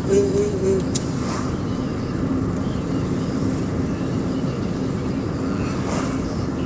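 Steady road and engine noise inside a moving car's cabin. A young child's short voiced sound is heard at the start, and there is a single click about a second in.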